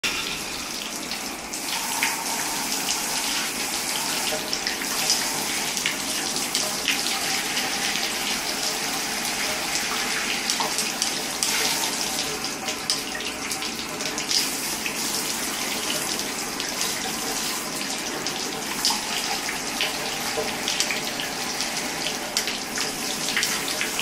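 Water spraying steadily from a RAINVISTA handheld shower head into a bathtub: an even hiss of spray with small splashes throughout.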